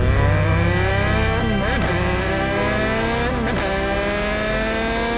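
Triumph Street Triple RS's three-cylinder engine accelerating hard, its pitch climbing steadily, with two short dips, about a second and a half in and again after three seconds, as it shifts up a gear each time.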